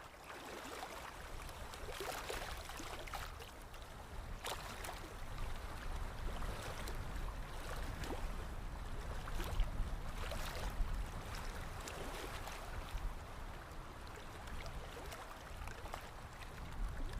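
Running water, flowing and splashing irregularly, with a steady low rumble underneath.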